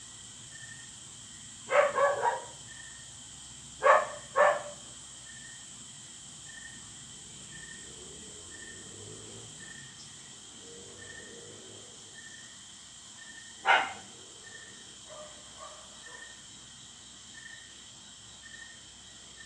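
A dog barking in short bursts: a cluster of barks about two seconds in, two more around four seconds, and a single bark near fourteen seconds. Under it runs a faint high chirping that repeats about twice a second, typical of crickets.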